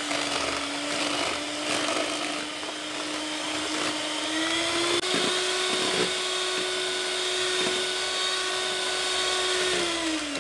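Electric hand mixer running steadily, its twin beaters whipping eggs and sugar to a foam. The motor's hum steps up a little in pitch about halfway through and winds down near the end.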